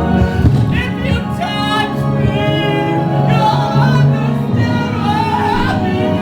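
Music with singing: a singer holds long, wavering notes over an instrumental backing.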